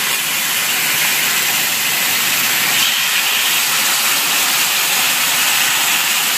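Marinated chicken breasts sizzling loudly in hot olive oil on a ridged grill pan, a steady even hiss.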